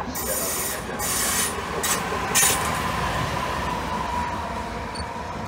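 Trenitalia E412 electric locomotive running light past the platform, its wheels rumbling on the rails. Several short hissing bursts come in the first two and a half seconds, and a faint steady whine sounds through the middle.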